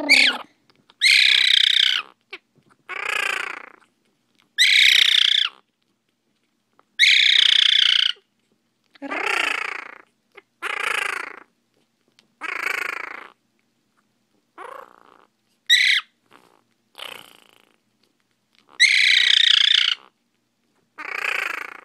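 Quaker parrot (monk parakeet) calling over and over: about a dozen loud, separate calls, each half a second to a second long, one to two seconds apart.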